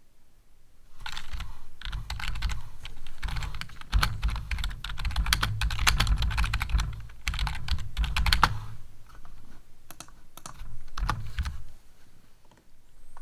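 Typing on a computer keyboard close to the microphone: a fast, continuous run of keystrokes for about seven seconds, then a couple of short bursts of typing before it stops.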